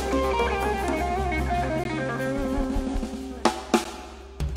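Band music without vocals: a guitar melody over bass and drum kit, with a few sharp drum hits near the end.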